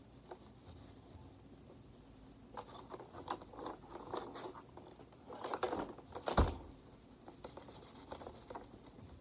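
A cloth wiping and rubbing over the plastic body of a Shark Vertex vacuum, with scattered scuffs from handling the parts and one sharp knock a little past the middle.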